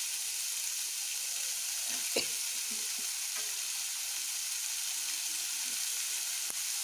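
Chopped onion and green chilli sizzling in hot oil in a pan as they are stirred, with a steady high hiss and a light knock about two seconds in.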